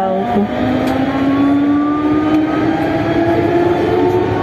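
Siemens VAL 208 NG rubber-tyred metro train running in a tunnel: a steady rumble of running noise under a traction-motor whine that rises slowly in pitch as the train gathers speed.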